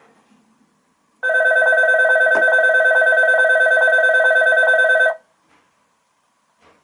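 An electric bell rings steadily with a fast, even pulse for about four seconds, starting about a second in and cutting off abruptly. There is a single sharp click about halfway through.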